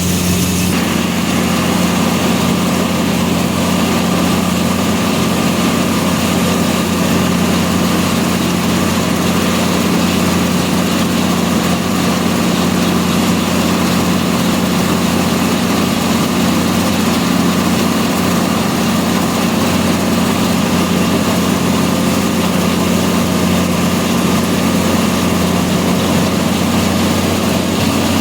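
Combine harvester running steadily at harvesting speed: a constant engine and machinery drone with a steady low hum.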